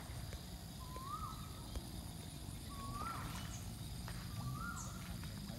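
An animal calling repeatedly: a short note that holds, rises briefly and then drops, about every two seconds, three times. Faint high chirps and a low rumble lie underneath.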